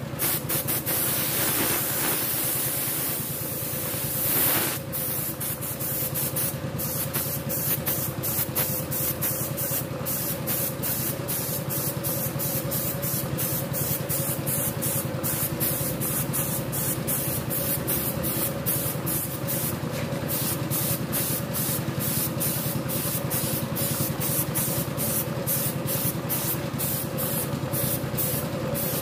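Gravity-feed spray gun hissing steadily as it sprays light-blue paint onto an engine block, over a steady low hum.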